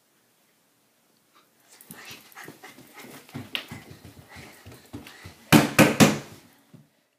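Two people scrambling up a carpeted staircase on hands and feet: a run of soft thuds and scuffs that starts about a second and a half in, with the heaviest thumps about five and a half to six seconds in.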